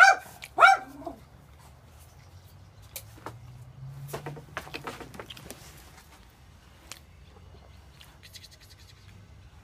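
Domestic cat giving two loud, drawn-out yowls in quick succession, the second falling in pitch, followed by a few faint clicks and taps.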